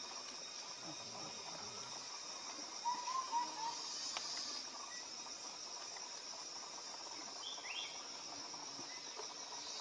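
A steady, high chorus of insects buzzing, with a few short wavering chirps about three seconds in and a couple of quick rising chirps near the end.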